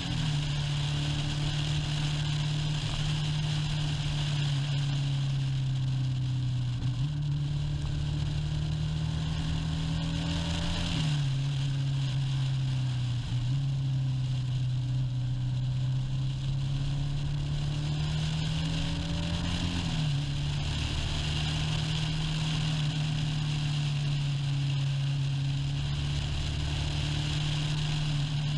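Motorcycle engine running at road speed, heard from the bike itself. Its pitch climbs slowly and drops suddenly at gear changes, most clearly about 11 and 20 seconds in, over a steady hiss of wind and road noise.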